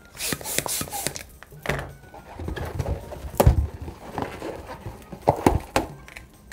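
Small latex balloon being handled and tied off by hand: irregular rubbing, squeaks and clicks of the latex, with a dull thump about three and a half seconds in.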